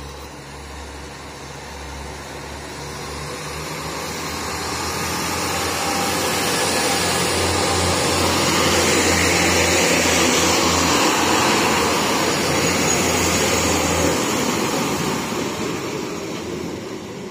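Northern Ireland Railways Class 3000 diesel multiple unit moving past along the platform. The engine and wheel noise builds to a peak about ten seconds in, then fades, and a low engine drone stops suddenly about fourteen seconds in.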